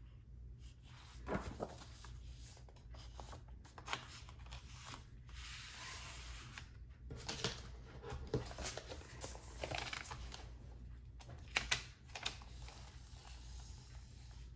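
Hands handling a cardboard LP jacket and its paper inner sleeve on a tabletop: rustling, sliding and light taps, as a 180g red vinyl record is slid out of the sleeve. A pair of sharp clicks near the end is the loudest moment.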